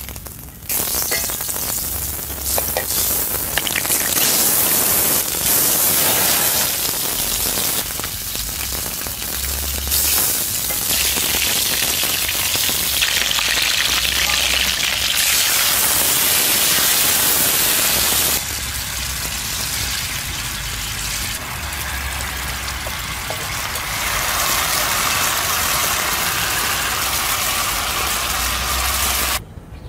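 Food frying in butter in a steel pan over a wood fire: a steady sizzle from melting butter and bacon-wrapped meat rolls. The sizzle gets louder and quieter in stretches as the shots change.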